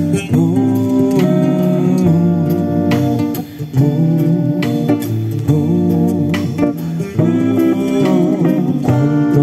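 Instrumental passage of a band's song: guitar playing sustained chords over bass guitar, with no vocals.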